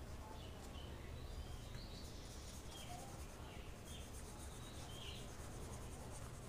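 Faint background with a low steady hum and scattered brief, faint bird chirps.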